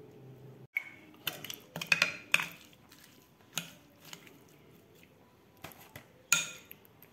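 A spoon clinking and scraping against a bowl as a chopped filling is stirred and scooped: a quick run of clinks about a second in, then single clinks, one of the loudest near the end.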